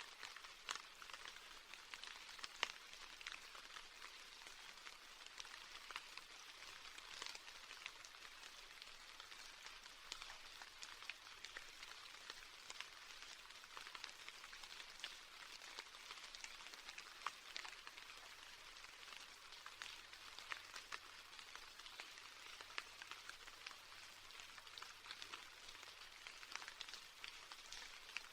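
Steady, faint rain: a soft hiss dotted with many small, irregular ticks of drops striking a surface.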